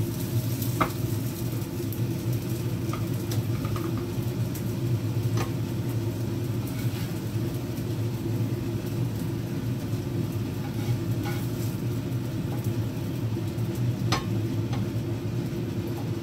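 A spatula scraping and tapping against a frying pan and plate as scrambled eggs are served, a few short clicks over a steady low hum.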